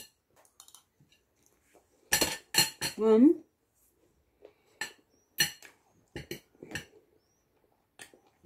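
Metal cutlery clinking and scraping against a cut-glass bowl while someone eats from it: scattered sharp clicks, busiest from about two seconds in and again around five to seven seconds. A short rising hum of voice about three seconds in.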